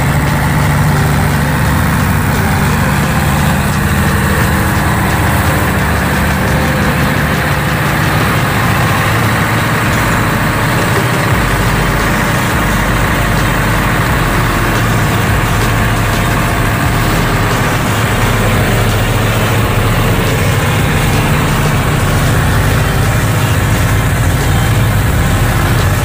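Heavy diesel machinery running steadily: a low, even engine hum, idling, from the trucks, crane and generator working a pile-unloading site. The hum shifts slightly in pitch about ten seconds in and again near the end.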